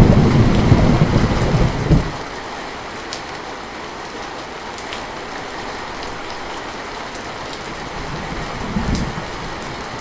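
Heavy rain falling steadily, with a low rumble of thunder that dies away about two seconds in and a fainter rumble near the end.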